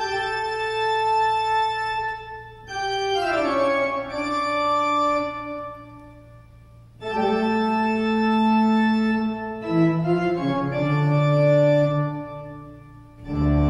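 Organ music: long held chords that change every few seconds, one chord sliding downward in pitch about three seconds in, with the music dropping low for a moment around the middle before the next chord comes in.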